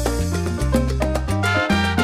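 Background salsa music with a steady bass beat and brass.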